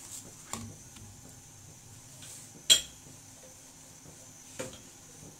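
Three sharp metallic knocks and clanks from an iron tawa on a gas stove while a chapati is handled on it, the loudest and sharpest about halfway through.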